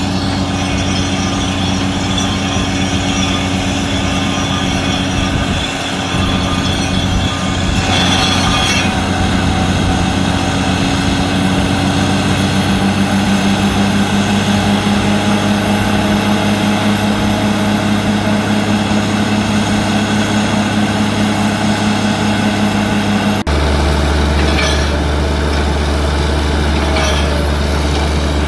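Heavy diesel engine of a borehole drilling rig running steadily with a loud, constant drone. Its pitch edges up slightly about halfway through, and the low hum changes abruptly about 23 seconds in.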